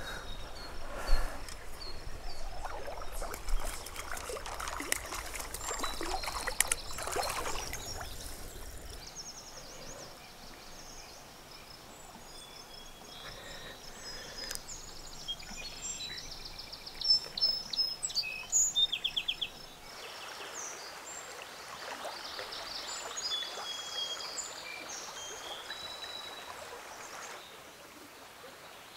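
Small river flowing, with several birds singing and calling. The running water is louder for about the first nine seconds; after that it is softer and the birdsong stands out, with a loud, rapid trill about halfway through.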